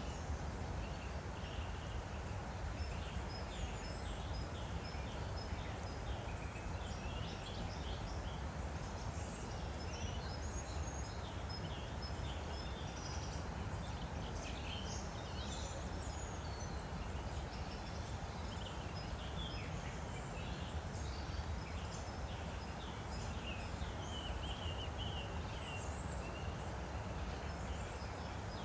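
Steady rush of a woodland stream, with many small birds chirping and singing throughout.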